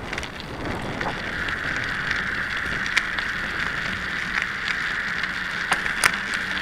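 Bicycle moving off and riding on an icy street: a steady hiss of tyres and wind on the bike-mounted camera's microphone that grows about a second in, with a few sharp clicks, two close together near the end.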